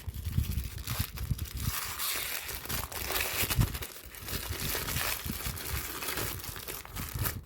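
Toy packaging crinkling and crackling as it is opened by hand to free a small figure.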